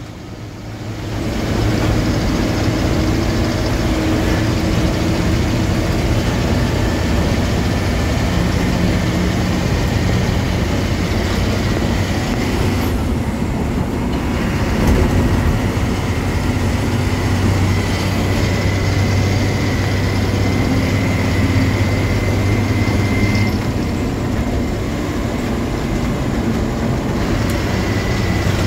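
Heavy truck's diesel engine and cab noise heard from inside the cab while driving: a loud, steady drone with road rumble whose note shifts a few times.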